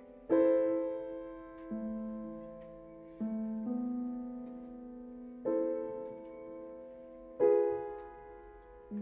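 Solo upright piano playing slow chords over a moving bass, struck every second or two, each left to ring and fade before the next.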